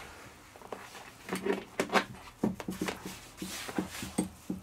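Open metal chassis of a KOCOM KVR-AH800 CCTV recorder being handled and tipped on its side: a quick string of light knocks, clicks and rattles from the case, starting about a second in.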